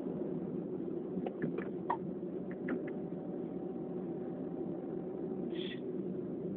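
Steady low background hum with a few faint clicks in the first few seconds and a short breathy hiss near the end.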